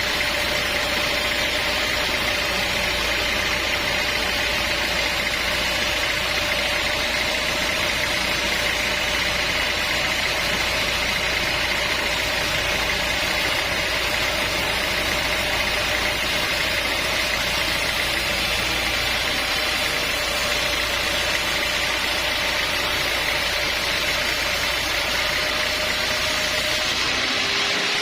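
Sawmill engine running steadily with a constant whine; the lower part of the whine fades out near the end.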